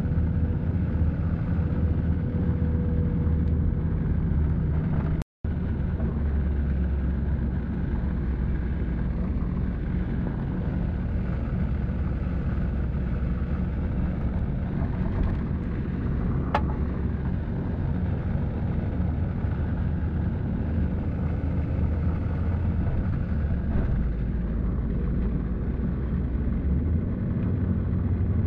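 Steady low rumble of a moving vehicle's engine and tyres, heard from inside the vehicle. The sound drops out completely for a split second about five seconds in.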